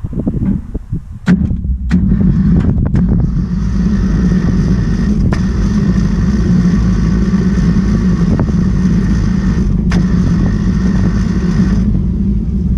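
A few short clicks, then the sawmill's engine turns over and keeps going steadily for about ten seconds before stopping near the end.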